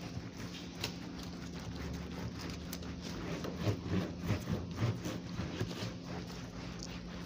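Soapy sponge scrubbing a car's wet plastic wiper cowl grille: irregular rubbing and squelching strokes, heavier about halfway through.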